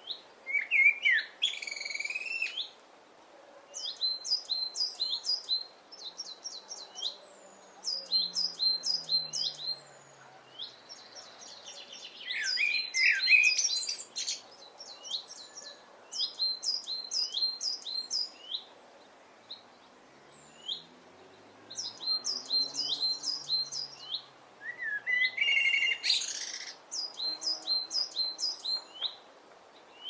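Songbirds singing in repeated phrases of quick, high, downward-slurred notes, several to a second. A few louder, lower and more jumbled phrases come near the start, in the middle and near the end.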